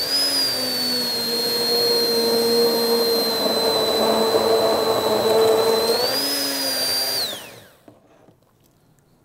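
Handheld immersion blender motor running steadily with a high whine as it purees a pot of soup, its pitch rising briefly twice. About seven seconds in it switches off and winds down, its pitch falling.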